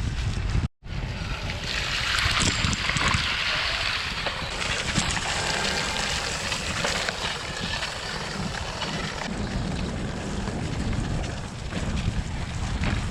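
Wind buffeting the microphone of a bicycle-mounted camera, mixed with the hiss of gravel-bike tyres rolling through wet, sludgy limerock. The hiss grows louder about two seconds in and eases off later.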